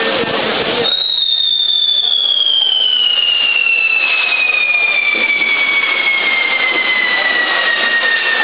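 Fireworks on a toro de fuego: about a second of dense fizzing hiss from the spark fountains, then a loud, shrill pyrotechnic whistle starts and slides steadily down in pitch, with fainter whistles sounding alongside it.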